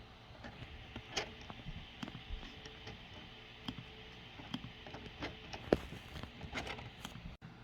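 Scattered light clicks and taps over a faint steady hiss, with one sharper tap about six seconds in.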